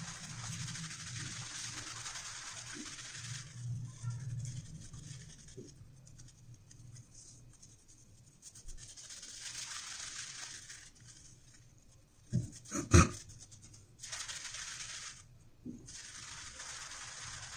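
Shaving brush scrubbing shaving cream into a heavy beard: a scratchy swishing that comes in spells with short pauses. Two sharp knocks come close together about three-quarters of the way through.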